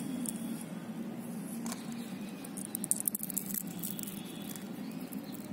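Dry petunia seed pods crackling and rustling as fingers crumble them, with tiny seeds pattering onto a plastic lid; the crackling is busiest about three seconds in.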